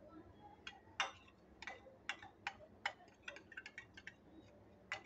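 Metal spoon tapping and scraping against a small bowl and a plate as water is spooned onto marinated chicken: a string of light, irregular clicks that come faster about three seconds in.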